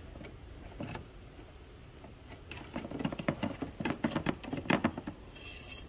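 Steel dipstick scraping and rattling inside its metal dipstick tube as it is pulled out by hand: a quick run of small clicks and scrapes through the middle, the loudest about four to five seconds in.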